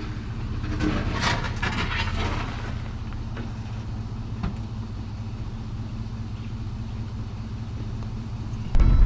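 A vehicle's engine running steadily, a low rumble, with a brief burst of noise about a second in. Loud music cuts in suddenly near the end.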